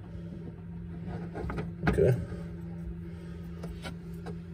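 Hands handling electrical wires and crimp spade connectors against a wooden panel: light rustles and knocks, with a louder knock about two seconds in, over a steady low hum.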